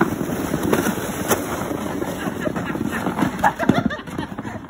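Plastic sleds scraping and bumping over crusty snow as they slide down a slope, a rough, crunchy noise with brief voices mixed in.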